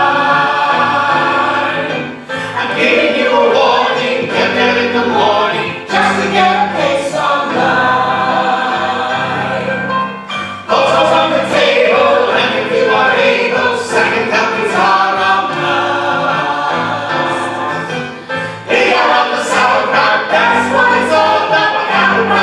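Several voices singing a song together over instrumental accompaniment, with short breaks between phrases.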